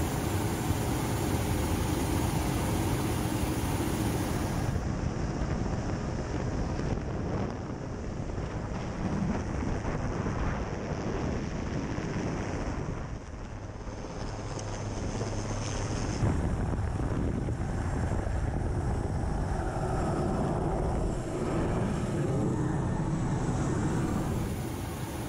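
Steady helicopter engine and rotor noise mixed with wind rushing past the open door, heard from aboard the helicopter. The sound changes abruptly about five seconds in and again near the end.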